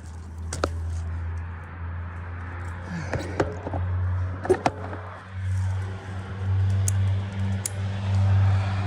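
A chainsaw idling steadily, with scattered sharp knocks and clicks.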